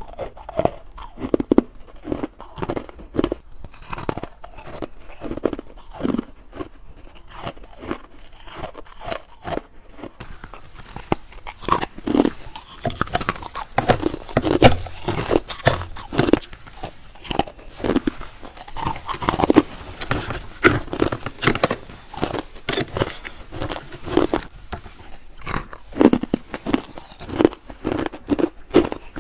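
Freezer frost being bitten and chewed close to the microphone: a long run of sharp, crisp crunches, denser and brighter from about a third of the way in.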